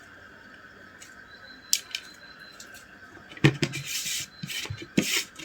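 Bait dough being kneaded by hand in a plate: a couple of light clicks, then from about the middle a busy run of knocks, scrapes and squishes of hands and dough against the plate.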